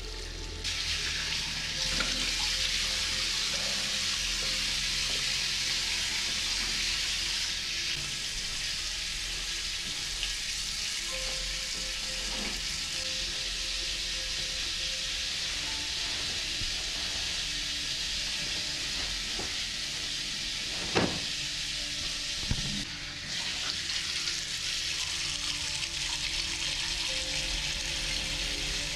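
Water running steadily from a tap into a bathroom sink, a continuous hiss. Two sharp knocks about three-quarters of the way through.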